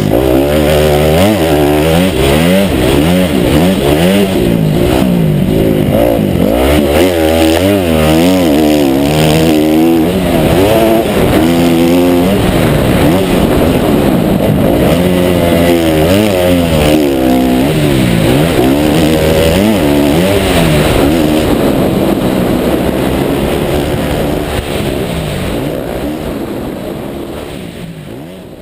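Motocross bike's engine revving up and down again and again as it is ridden hard round a dirt track, heard from the rider's helmet camera; the sound fades out near the end.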